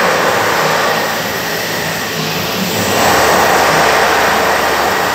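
Steady, loud rushing noise, like moving air, that swells a little about three seconds in.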